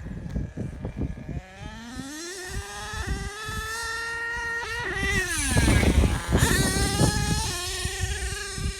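HPI Savage 3-speed RC truck's small nitro engine revving up to a high, steady whine. The pitch drops briefly about five seconds in, then climbs and holds again. Loud rough rumbling and thumps come from around the middle.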